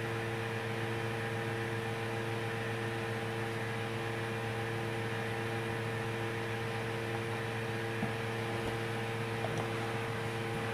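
Steady electrical hum with several fixed tones over a constant hiss, with a faint tick about eight seconds in.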